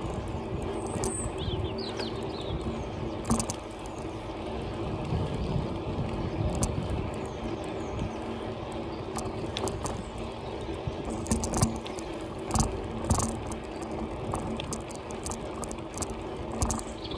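Bicycle rolling along a tarmac cycle path: steady tyre and road noise with a low hum. From about two-thirds of the way in, frequent clicks and rattles come from the bike as it jolts along.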